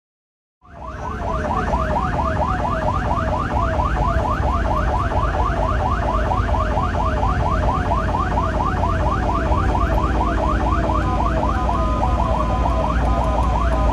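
Ambulance's electronic siren in fast yelp mode, quick rising sweeps about four a second, over a steady low engine and road rumble. It starts about half a second in, and near the end the sweeps give way to a steadier two-note tone.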